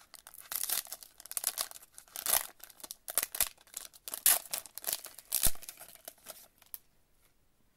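Foil trading-card pack being torn open and crinkled by hand: uneven bursts of crackling and ripping that stop near the end.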